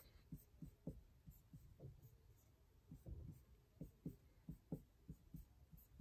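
Faint strokes of an Edding 360 whiteboard marker drawing a circle and small crosses on a whiteboard: a quick, uneven string of short scratches.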